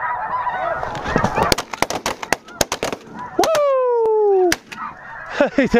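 Snow geese calling, broken about a second in by a rapid volley of shotgun shots from several hunters firing together, then a long falling cry and one last shot; the goose calling picks up again near the end.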